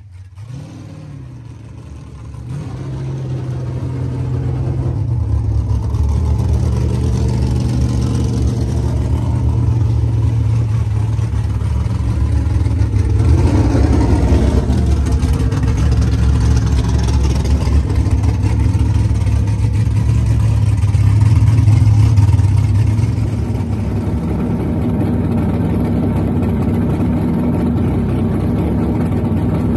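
Chevrolet COPO Camaro's 427 V8 idling with a deep, steady rumble, quieter for the first couple of seconds. About halfway through there is a brief dip and rise in pitch.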